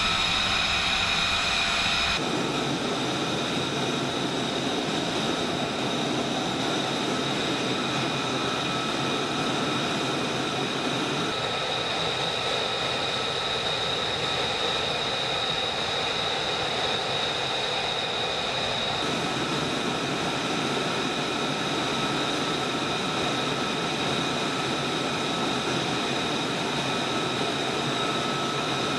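The Pratt & Whitney F135 engine of a U.S. Marine F-35B running at idle during a hot reload: a steady high-pitched whine with several fixed tones over a constant rush of jet noise. The lower rush shifts abruptly a few times.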